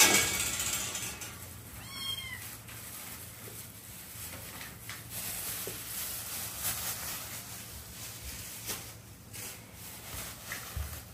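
A loud scuffing noise right at the start as a cat pushes against the camera, then a single short cat meow about two seconds in, followed by soft rustles and small movement sounds.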